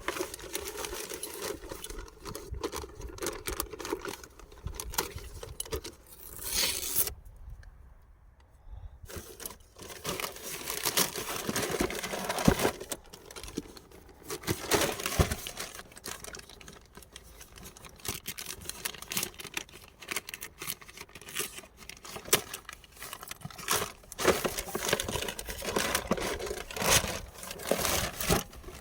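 Packaging of a toy RC car box being opened and handled: plastic and cardboard crinkling and tearing, with irregular clicks and rattles of small parts. The handling pauses briefly about seven seconds in, then carries on.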